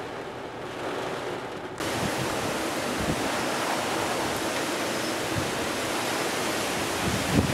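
Hurricane wind making a steady rushing noise, coming in abruptly about two seconds in after a quieter hiss, with a low buffeting rumble near the end.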